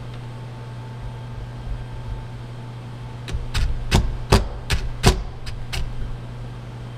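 Cordless impact driver fired in about eight short bursts on the carburetor's small screws, shocking them loose so they don't strip. The bursts come between about three and six seconds in, over a steady low hum.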